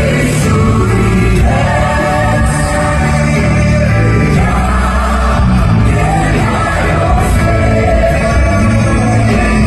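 Live gospel music played loud through the arena's sound system: a large group of singers sings over a band with heavy bass.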